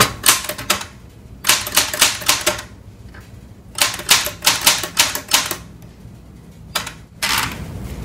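Typewriter keys struck in quick runs of sharp clacks, with short pauses between the runs as a short phrase is typed on a Sears typewriter. A couple of further clacks come near the end.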